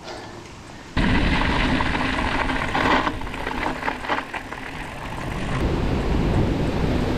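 Wind buffeting the microphone, with the rumble of a mountain bike rolling over rough ground. It starts suddenly about a second in, and a few rattles come in the middle.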